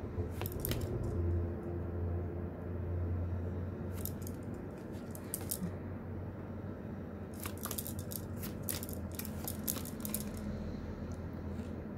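Tarot cards slid and flicked against one another by hand as they are moved through the fan one by one: short papery flicks and rustles in clusters, about half a second in, again around four to six seconds in, and from about seven to ten seconds in, over a steady low hum.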